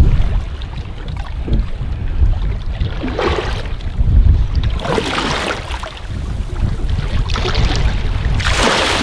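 Wind rumbling on the microphone aboard a boat at sea, with water splashing against the boat in several short rushes, the longest and loudest near the end.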